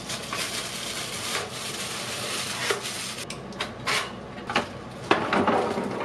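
Plastic wrapping and bags rustling and crinkling as packing material is handled, with a few light knocks from a plastic tray.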